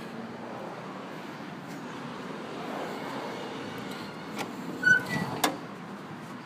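A 1980 Pontiac Trans Am's trunk lid being unlatched and opened: a few light clicks, a short squeak and one sharp clack about five seconds in, over a steady background hiss.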